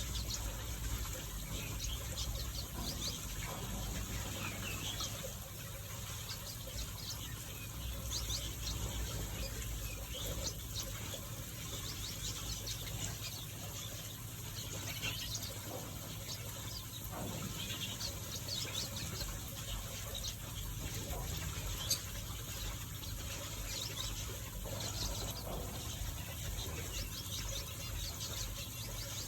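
Many small finches chirping and twittering in an aviary: a continuous scatter of short, high calls over a steady low hum, with one sharp click about two-thirds of the way through.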